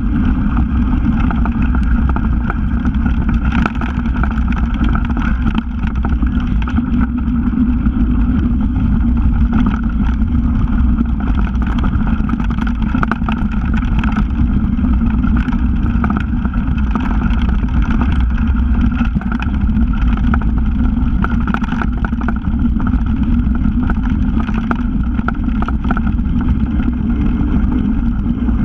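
Steady rush of wind and rolling noise on a bike-mounted camera during a mountain-bike descent on a bumpy dirt trail, with many small rattles and knocks from the bike over the rough ground.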